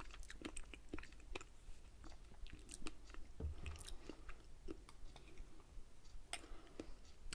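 Close-miked chewing of strawberries and whipped cream: soft, wet mouth clicks and smacks, several a second.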